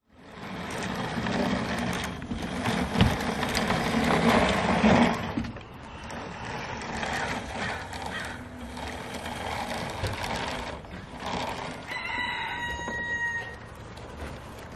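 Bruder plastic toy street sweeper pushed by hand over a plywood board, with wheels rolling, brushes turning and plastic rattling and scraping. It is loudest for the first five seconds, then quieter. About twelve seconds in, a rooster crows once, a pitched call lasting about a second and a half.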